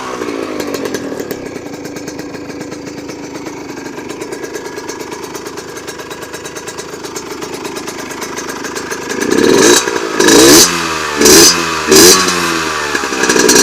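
HM Derapage RR's two-stroke engine idling steadily through a carbon Giannelli exhaust, then revved hard in four or five quick throttle blips from about nine seconds in, each rising and falling in pitch.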